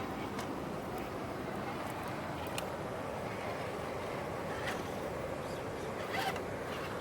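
Steady rushing of river water and falls, with a few faint clicks scattered through it.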